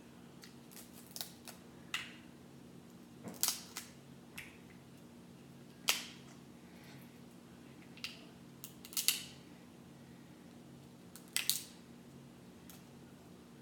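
Crab leg shells being cracked and snapped apart by hand: a string of sharp cracks a second or two apart, some in quick pairs, over a faint steady hum.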